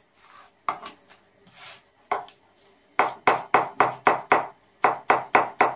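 Knife chopping a leek finely on a cutting board: two single chops early on, then from about halfway a quick even run of chops, about four a second, each a sharp tap of the blade on the board.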